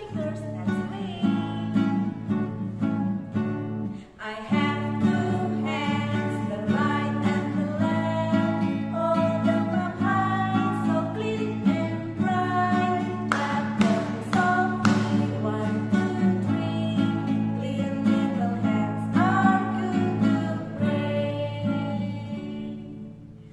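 Acoustic guitar strummed in a steady rhythm while two women sing a children's song along with it; the guitar and singing stop just before the end.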